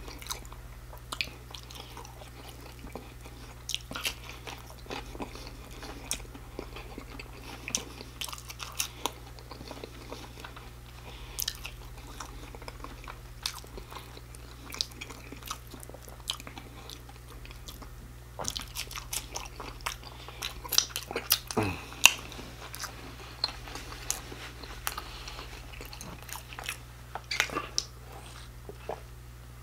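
Close-up mouth sounds of a person chewing and biting sauce-covered fried shrimp and fries: irregular wet smacks and crunchy clicks throughout, with a louder flurry about two-thirds of the way in.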